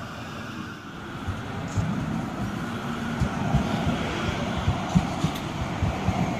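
Frankfurt U-Bahn U5-25 light-rail train pulling out of the station and running past, getting louder from about a second in. Steady wheel-on-rail noise is broken by repeated low clunks from the wheels running over the track.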